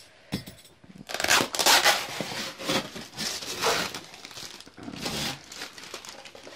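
Packing tape being peeled off a styrofoam box and crumpled up: a run of rustling, crinkling tears, loudest about a second and a half in, dying away after about five seconds.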